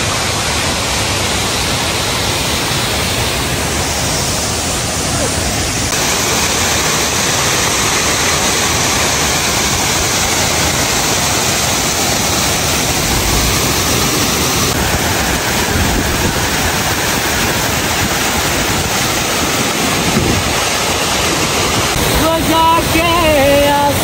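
Waterfall spilling down a rock face: a steady, loud rush of falling water. Near the end a young man's voice starts singing over it in held notes.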